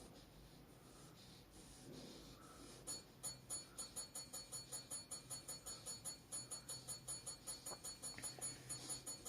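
Small tap bell rung rapidly and repeatedly, about three to four dings a second, starting about three seconds in after a quiet, tense stretch.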